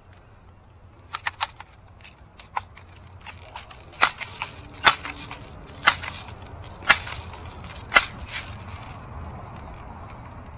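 Crosman 760 Pumpmaster multi-pump air rifle being charged: five sharp clacks of its pump lever, about a second apart, after a few lighter clicks. Five pumps is a moderate charge for the next shot.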